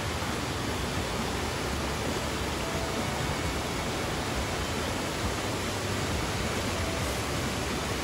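Clear mountain stream rushing and splashing over rocks in a small cascade, a steady, even rush of water.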